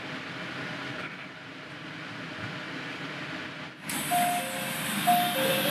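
Electric commuter train running slowly into a station platform, a steady rolling noise heard from inside. About four seconds in, this gives way to a hiss and a repeating two-note chime as the train stands at the platform with its doors closed.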